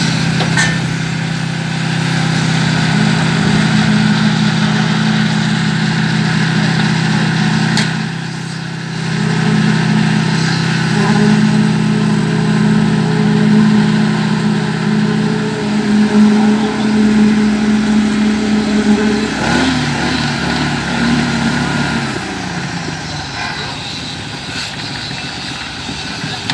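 An engine running steadily with a loud, even hum. Its pitch shifts about two-thirds of the way in and it settles to a lower, quieter running near the end.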